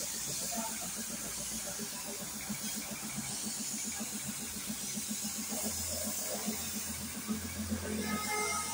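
Gravity-feed compressed-air spray gun hissing steadily as it sprays paint onto a car body, with a low, rapid, even pulsing underneath.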